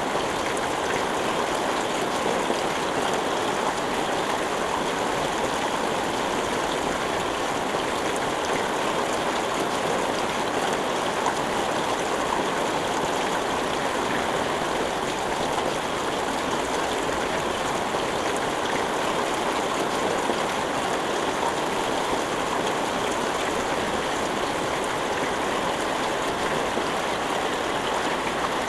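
Steady rain falling, an even rushing hiss with no thunder or other sudden sounds.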